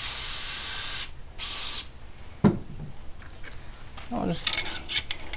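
Aerosol spray can hissing in two bursts, about a second and then half a second, spraying cleaner into a .22 rifle's action. A single sharp knock follows a little later.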